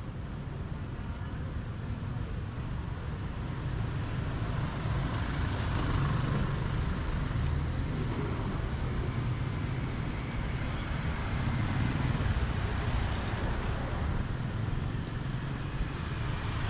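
Street traffic: a steady rumble of passing vehicles that grows louder a few seconds in.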